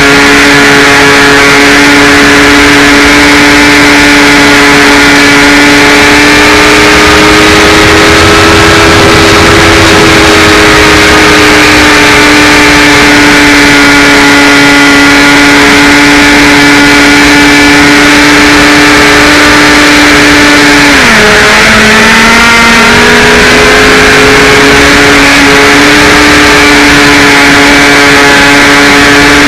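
Electric motor and propeller of a HawkSky RC glider running with a loud, steady whine whose pitch wanders slightly with throttle. Near the end it drops sharply and then climbs back up.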